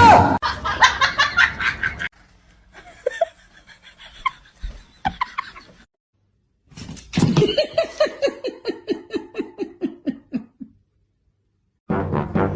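A person laughing in runs of quick ha-ha pulses, the longest run, about seven seconds in, falling steadily in pitch. A steady pitched tone, horn- or music-like, cuts in near the end.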